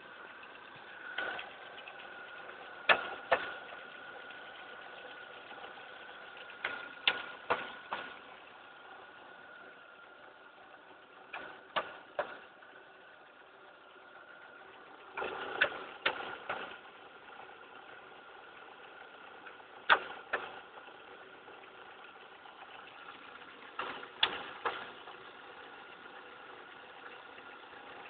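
A 2000 Ford Focus ZX3's 2.0 DOHC engine idling steadily, with sharp taps every few seconds in quick groups of two to four, like pieces of plastic snapping together. The owner has never heard this tapping before and fears it could damage the engine.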